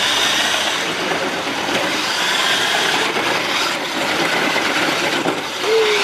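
Toy remote-control monster truck driving over paving stones: a steady grinding whir from its electric motor, gears and knobby tyres.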